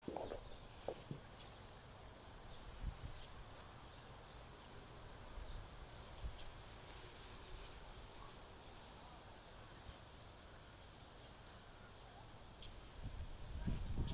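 A steady high-pitched trill of field insects in the grass, with faint rustling and a few soft knocks as a dog noses through tall grass.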